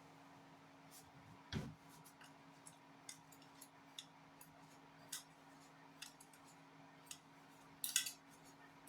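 Scattered light clicks and taps of the mixer-grinder jar and its lid being handled after the grinder is switched off, with a faint steady hum underneath.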